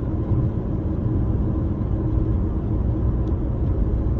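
Steady road and engine rumble inside a moving car's cabin while driving.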